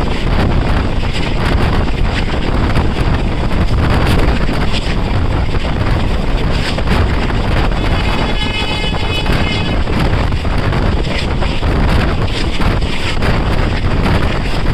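Passenger train coach running on the track: a steady rush of wheel and rail noise with wind buffeting the microphone, and many irregular clicks and rattles. About eight seconds in, a short high-pitched tone sounds for under two seconds over the noise.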